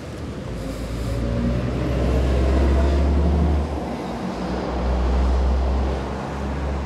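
A motor vehicle's engine running nearby with a low rumble that swells, dips briefly in the middle, rises again and eases off, as a vehicle passing or moving close by.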